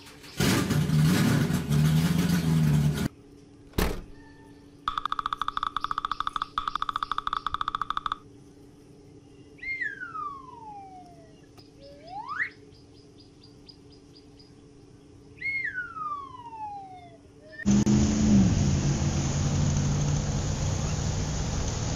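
A string of added cartoon sound effects: a vehicle engine sound for the first few seconds, a click, then about three seconds of fast rattling electronic ringing. Whistle tones follow, sliding down and then back up in pitch and later down once more, and the engine sound returns for the last few seconds.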